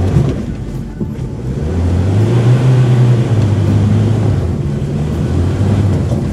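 Pickup truck engine revving hard as it spins donuts on loose dirt. The revs climb about a second and a half in, then hold and waver.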